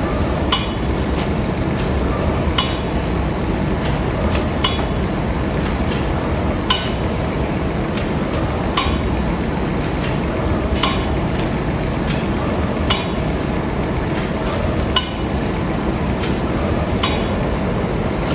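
Vertical form-fill-seal pouch packing machine with an auger filler, running and packing flour into pouches: a steady mechanical din with a sharp click about every two seconds, fainter clicks between.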